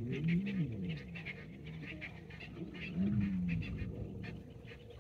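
Lion growling low, a run of moaning calls that rise and fall in pitch at the start and another about three seconds in.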